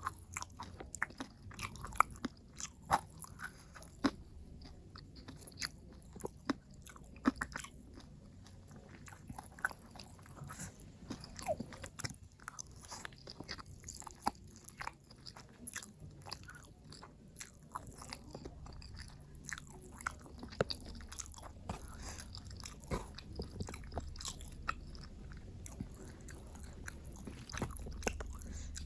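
Close-miked eating: a person biting and chewing food, with many sharp, irregular crunches.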